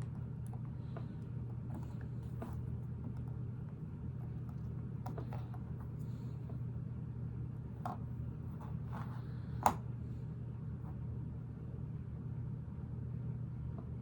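Small clicks and taps of Lego pieces being handled and pressed together, with one sharper click a little over two-thirds of the way through, over a steady low background hum.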